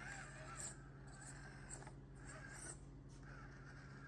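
Traxxas TRX-4M micro crawler's brushed motor and gears whining faintly as it crawls over rocks, the pitch rising and falling with the throttle, with a few light clicks.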